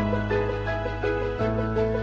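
Instrumental background music: a slow melody over held bass notes that change about every second and a half.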